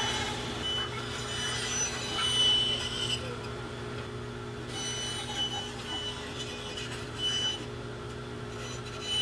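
Short high-pitched tones, on and off about half a dozen times, over a steady low hum.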